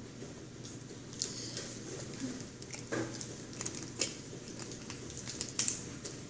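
Scattered small clicks, knocks and crinkles of eating at a table: fast-food cardboard boxes and paper wrappers handled, and a small plastic juice bottle's cap twisted.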